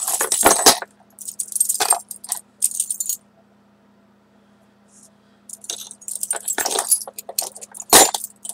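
A ring of small old metal keys jangling and clinking as they are worked off the ring by hand, in two spells with a short quiet pause in the middle and a sharper clink near the end.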